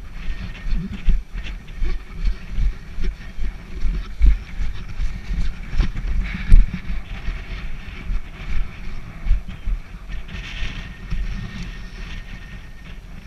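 Footsteps of a player walking briskly, heard as heavy thuds about two a second through a body-worn GoPro, with gear jostling; the steps ease off near the end.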